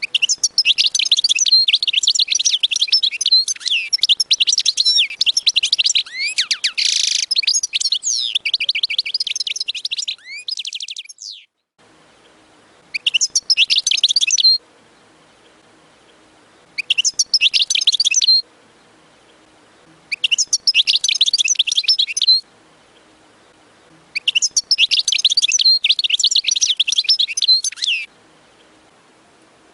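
European goldfinch singing: a long run of rapid twittering, trilling song lasting about eleven seconds, then shorter bursts of song of one and a half to four seconds with pauses of about two seconds between them.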